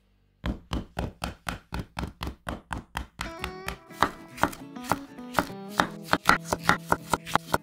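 Kitchen knife chopping a cucumber on a wooden cutting board in quick, even strokes of about four a second. Light background music comes in about three seconds in.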